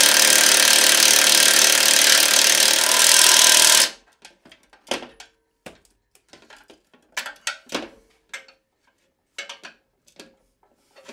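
Cordless impact driver hammering bolts in, stopping abruptly about four seconds in, followed by a scatter of sharp metal clinks and knocks as parts and tools are handled.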